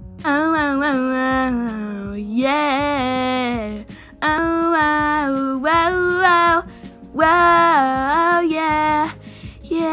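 Music: a female voice singing held, wavering notes in short phrases with brief breaks between them.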